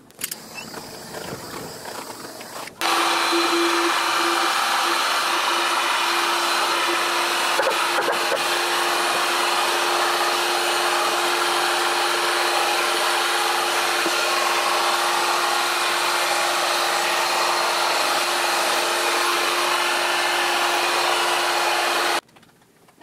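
Handheld heat gun running steadily, its fan giving a constant hum under a rushing blast of air, as it blows across wet epoxy resin to spread the white into ocean-wave lacing. It switches on abruptly about three seconds in and cuts off shortly before the end.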